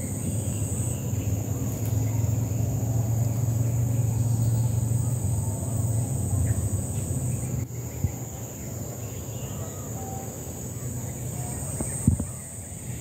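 Insects chirring steadily at a high pitch over a low steady rumble, with a sharp knock just after twelve seconds in.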